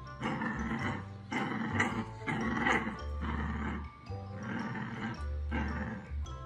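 Puppy growling in about six rough bursts, each under a second, over background music.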